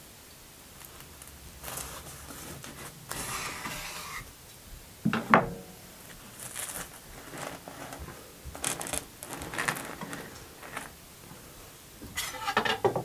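Kitchen handling sounds of a freshly baked sweet roll being cut and handled: scattered rustles, knife and dish knocks, with one sharp knock that rings briefly about five seconds in and a cluster of clatter near the end.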